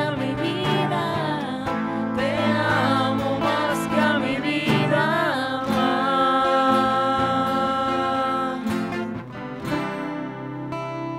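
Live worship song: voices singing over strummed acoustic guitars. The singing stops about nine seconds in and the guitars play on.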